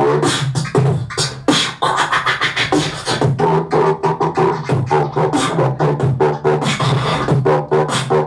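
Human beatboxing: a fast run of mouth-made kick, snare and click sounds over a steady hummed, drone-like bass.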